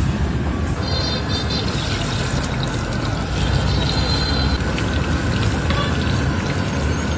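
Boiled eggs deep-frying in a large pot of hot oil: a steady sizzle.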